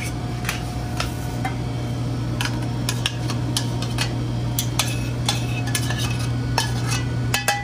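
Metal tongs clinking and scraping against a stainless steel pan as thick chicken pot pie filling is stirred and scraped out into a cast iron skillet, with repeated sharp clinks. A steady low hum runs underneath.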